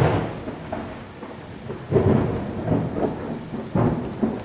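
Thunderstorm sound effect over an end card: steady rain with rumbles of thunder, the loudest at the start and two more about two and four seconds in.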